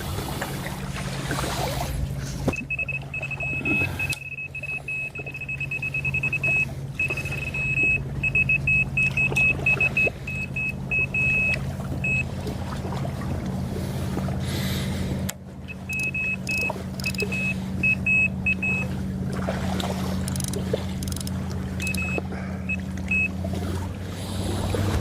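A motor hums steadily and low throughout. A high-pitched electronic beep sounds in quick runs: a long run a few seconds in, then scattered bursts through the middle and near the end.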